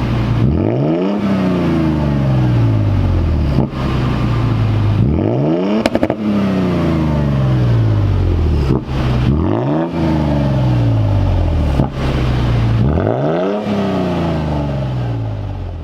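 A 2022 Toyota Tundra's twin-turbo V6 revving through a cut-and-clamp mid-muffler replacement exhaust. The engine is blipped four times, about every four seconds; each rev climbs quickly and falls back slowly to idle.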